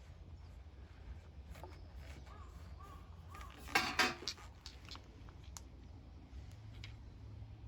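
Scattered metallic clinks and a short clatter about four seconds in, over a low steady hum.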